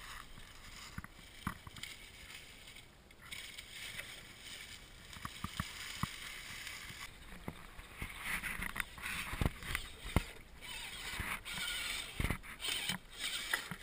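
Scale RC rock-crawler trucks driving through a shallow creek and over dry leaves: a steady hiss of rustling and water with scattered clicks and knocks, louder from about halfway.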